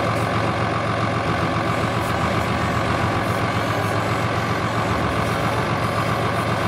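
Turbo-intercooled engine of a SAME Titan 145 tractor running steadily at an even speed.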